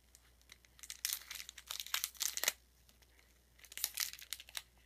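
Crinkling of the plastic wrapper on a 1992-93 Topps basketball card pack as it is handled and opened, in two spells of quick crackling, each a second or more long.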